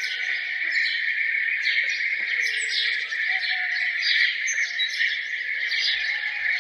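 Songbirds chirping and singing together in a dense chorus: quick overlapping chirps over a steady high-pitched hum, with a few lower whistled notes.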